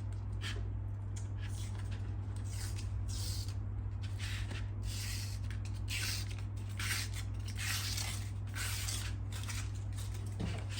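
Backing paper of a vinyl decal being torn and peeled away down the centre: a series of short, irregular papery rips and rustles over a steady low hum.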